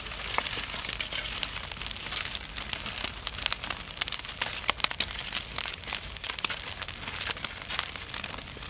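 Wood and charcoal fire crackling under a spit-roasted whole pig, with many irregular sharp pops over a steady hiss.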